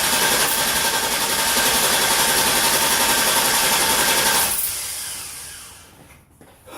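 Electric starter motor whirring steadily, then winding down after about four and a half seconds; the engine does not start.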